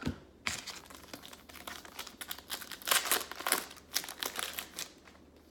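Crinkling and tearing of a 2019 Score football card pack's wrapper being opened by hand, a dense run of crackles that peaks in the middle.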